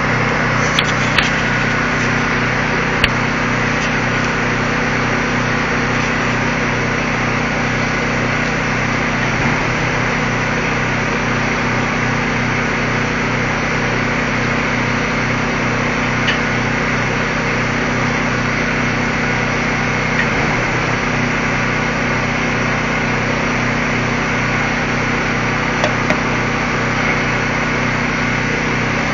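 An engine running at a steady speed, an even drone that holds the same pitch throughout.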